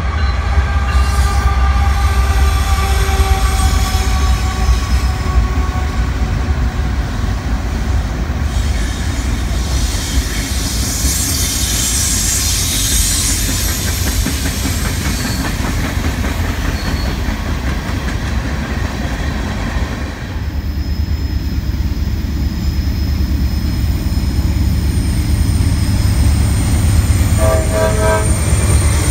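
Norfolk Southern freight train passing close by: a lashup of big GE and EMD diesel locomotives running, then freight cars rolling by with a steady heavy rumble and wheels clacking on the rails. About a second before the end, a short horn blast comes from an oncoming C44-9W locomotive on the next track.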